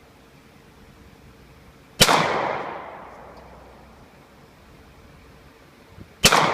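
Two shots from a Weatherby .22-250 rifle, about four seconds apart. Each is a sharp crack that trails off over about a second.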